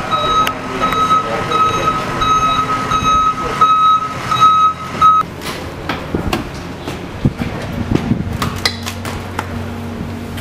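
Ambulance reversing alarm beeping steadily, cutting off about five seconds in. Then come clicks and clunks of the ambulance's rear door latch and doors being opened.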